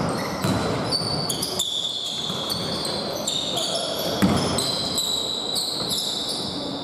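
Basketball play on a hardwood gym court: sneakers squeak in many short, high chirps as players cut and stop, and the ball thumps on the floor a few times, most clearly about four seconds in.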